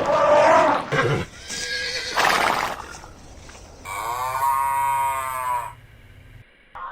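Farm animal calls: a short call at the start, some rough noisy blasts, then one long drawn-out call about four seconds in.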